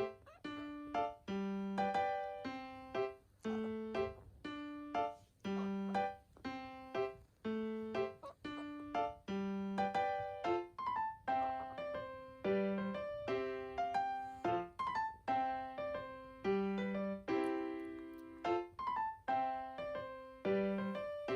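Background music: a light piano or electric-piano tune with a steady beat, bass notes and chords.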